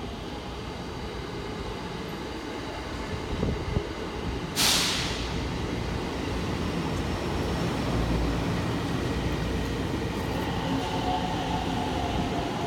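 JR Joban Line electric commuter train running with a steady rumble. About four and a half seconds in there is a sudden, sharp burst of air hiss that fades within half a second, and after it the running grows a little louder.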